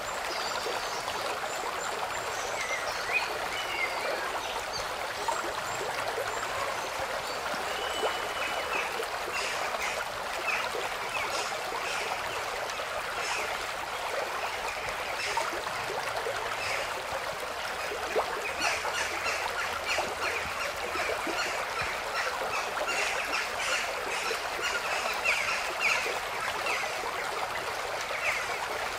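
A steady rushing noise like running water, with many short, high chirps and ticks over it, busier in the second half.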